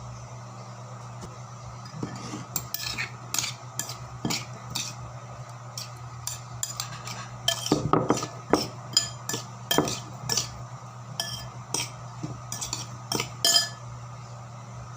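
A spoon stirring seasoned sisig in a bowl, knocking and scraping with irregular clinks, some of them ringing briefly. The clinks start a couple of seconds in and stop shortly before the end.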